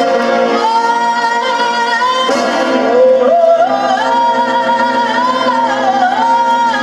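Music: a slow melody whose lead line holds long, wavering notes and steps up and down, over sustained accompanying tones.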